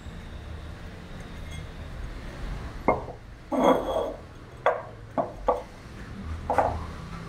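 Glazed ceramic lamp base and its brass socket fitting being handled on a tabletop: a handful of sharp clinks and knocks, starting about three seconds in.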